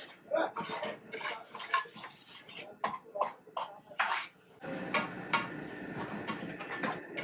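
A metal ladle scraping and clinking against a metal kadai (wok) as curry is scooped out and poured onto a plate, in many short sharp strokes. A steady low hum joins in about two-thirds of the way through.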